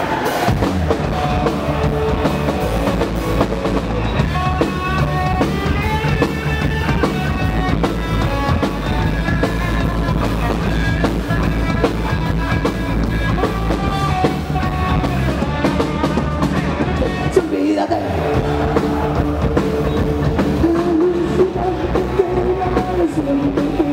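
Rock band playing live over a concert sound system: drum kit and guitar with singing. The low end drops out briefly about two-thirds through.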